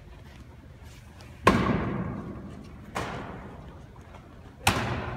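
Three heavy thuds about a second and a half apart, the first the loudest, each ringing out in the echo of a large gymnasium.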